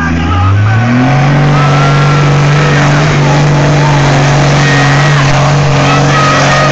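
Cummins diesel engine of a mud truck revving up about half a second in, then held at high revs as the truck runs through the mud pit, with black smoke pouring from the exhaust.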